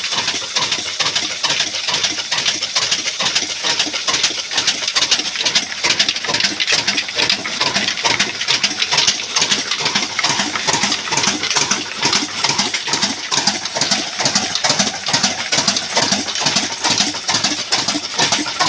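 Old black Ruston Hornsby-type diesel engine running steadily, its firing heard as a fast, even run of pulses.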